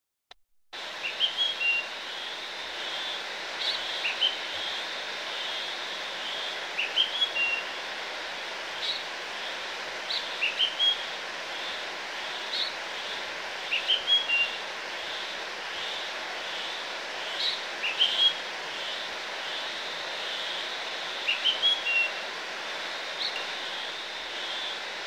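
Outdoor ambience: small birds chirping in short rising phrases, a few at a time every couple of seconds, over a steady hiss, starting about a second in.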